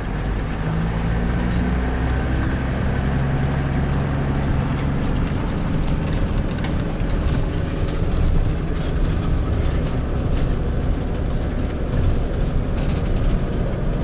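Safari vehicle's engine running as it drives along a rough dirt track, heard from inside the cabin, with frequent small rattles and clicks.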